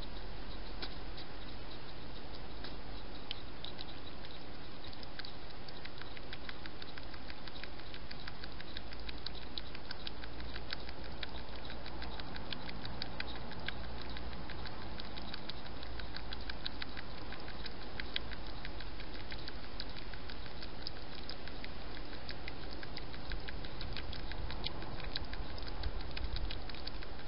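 European hedgehog feeding with its head in a bowl, a rapid run of small clicking, smacking mouth sounds.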